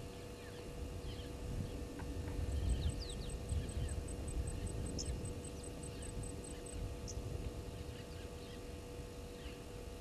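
Birds calling in dry bushveld: scattered short chirps and whistles. About two and a half seconds in, a thin, very high ticking series of roughly six ticks a second runs for about four seconds. Under them are a low rumble and a steady hum.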